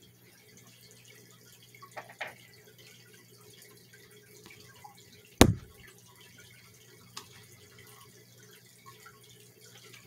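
Mostly quiet with a steady low hum, a few faint ticks, and one sharp click about halfway through.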